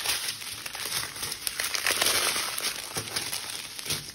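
Strip of sealed plastic bags of diamond painting drills crinkling and crackling as it is handled and laid over a plastic-covered canvas, busiest about halfway through.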